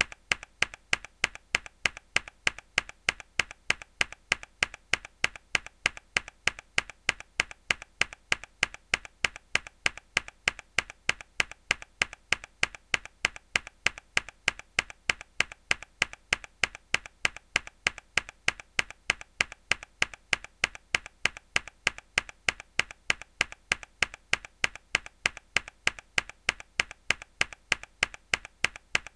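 A mechanical keyboard key struck hard, the same sharp keystroke click repeated evenly about three times a second.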